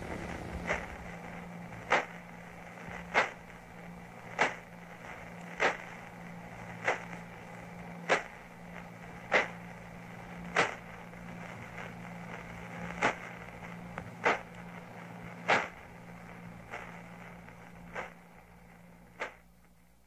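Radio pulsar signal made audible: sharp clicks about every 1.2 seconds, stronger and weaker by turns, over a steady low hum that fades near the end.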